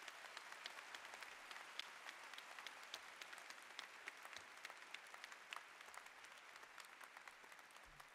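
Audience applauding: a faint, steady patter of many hands clapping, easing slightly near the end.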